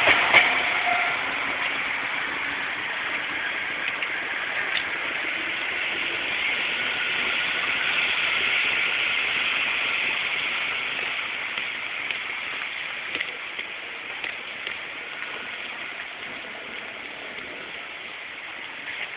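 Steady rushing noise of passing traffic, growing a little louder toward the middle and slowly fading near the end.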